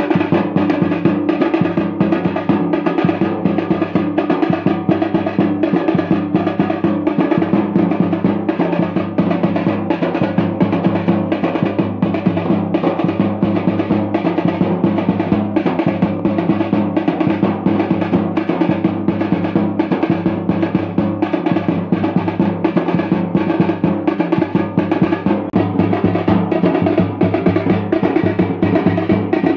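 Music with fast, steady drumming that runs without a break.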